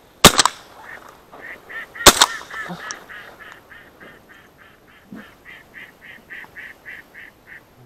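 Two shotgun shots about two seconds apart, then a duck quacking in a long, even series of about three calls a second.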